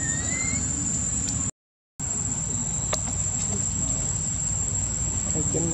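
Steady high-pitched drone of insects in outdoor forest, over a low rumble, with a short rising chirp right at the start. The whole sound cuts out for about half a second near the middle, then resumes.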